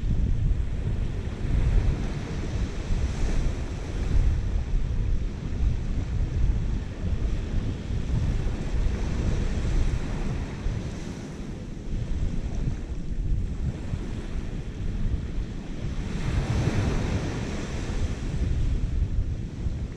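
Wind buffeting the microphone, with small waves washing on the shore; the wash swells a few seconds in and again near the end.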